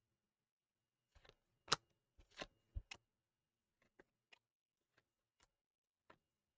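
Stack of trading cards being shuffled through by hand: a few light clicks and slides of card stock, the sharpest just under two seconds in and a small cluster soon after, then only sparse faint ticks.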